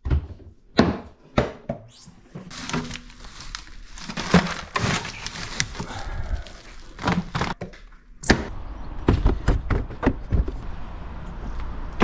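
A quick run of irregular knocks, thuds and handling noises, more than a dozen, over a steady rustling background; it cuts off suddenly at the end.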